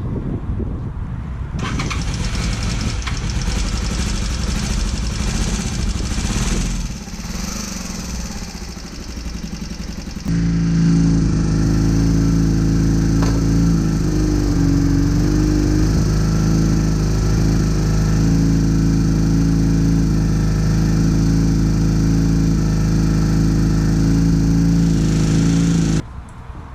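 A steady hiss, joined about ten seconds in by a motor running with a strong, even hum, which cuts off abruptly near the end.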